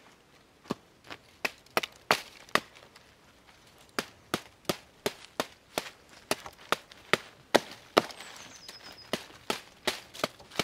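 A small hatchet striking a wooden stick over and over. The sharp wooden knocks come about three a second, with a short pause about three seconds in.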